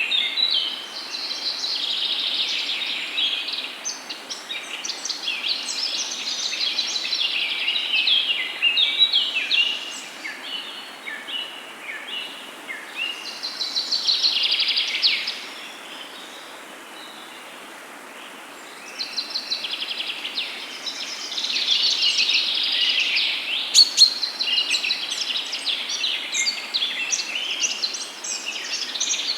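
Many small birds chirping and trilling together over a steady outdoor hiss, with a lull of a few seconds past the middle and one sharp click about three-quarters through.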